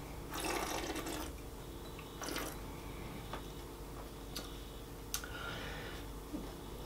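A person sipping red wine from a glass to taste it: a noisy, airy intake through the wine about half a second in and a shorter one around two seconds, then a few light clicks, over a faint steady hum.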